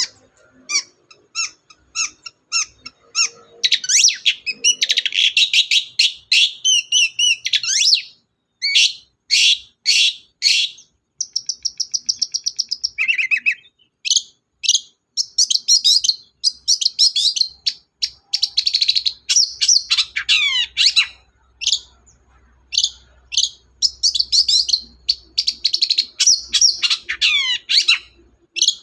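Long-tailed shrike (cendet) singing loudly, with a fast stream of varied chirps, a buzzy trill partway through and several quick downward-sweeping notes.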